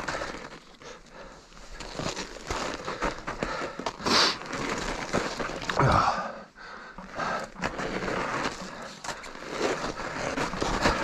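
Fat bike with studded tyres rolling fast down an icy snow trail: a continuous crunching, scraping rumble of the tyres on ice and hard snow, broken by frequent knocks and rattles from the bike over bumps, the biggest jolts about four and six seconds in.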